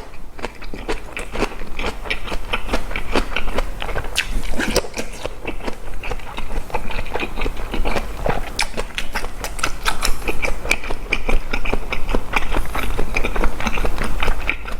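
A person chewing a mouthful of boiled pork shoulder wrapped with fresh napa cabbage kimchi, close to the microphone: a dense, steady run of wet smacks and clicks.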